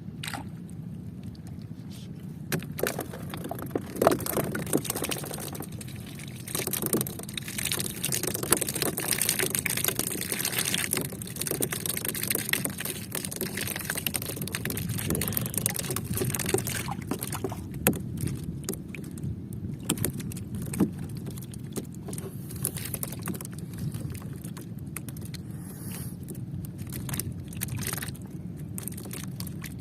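Steady low hum of a fishing boat's motor, with clicks and rattles of a fishing reel and tackle as a hooked tongkol is fought and reeled in. A hissy stretch in the middle is likely splashing water.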